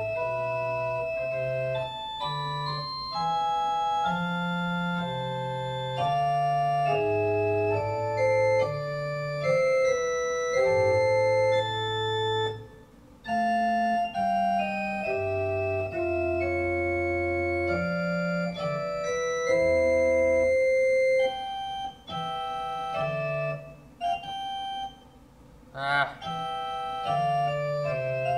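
Organ playing a slow practice passage in sustained chords over a moving bass line. The notes are held and steady. The playing breaks off briefly about halfway through and a few times near the end before going on.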